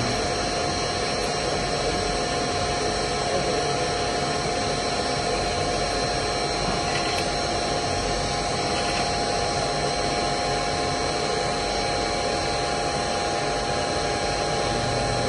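Steady machine hum with a few constant whining tones over an even rushing noise, unchanging throughout.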